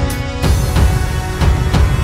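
Background music with a steady beat of heavy low drum hits.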